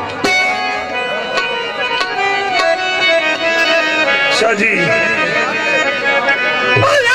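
Punjabi folk music with no singing: a free-reed instrument holds chords over hand-drum strokes.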